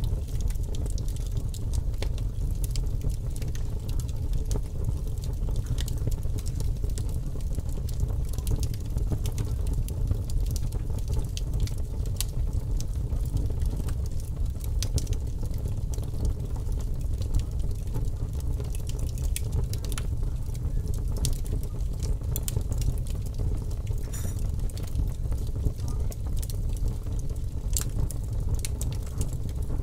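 Fire crackling: frequent small, irregular pops and snaps over a steady low rumble.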